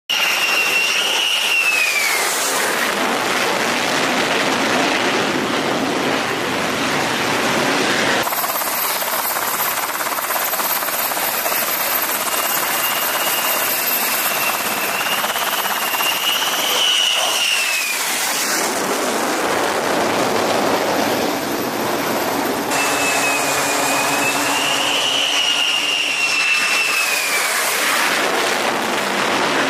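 F-35C Lightning II jet engine running loud on approach to and landing on an aircraft carrier deck: a dense rush of jet noise with a high turbine whine that rises and falls. The sound jumps abruptly twice where the shots are cut.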